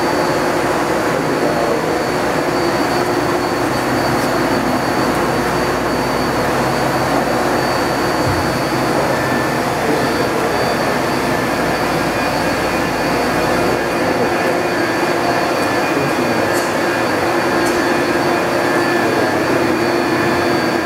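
Steady machinery hum with a thin, high whine over it, from running shop equipment. The deep rumble underneath fades about two-thirds of the way through.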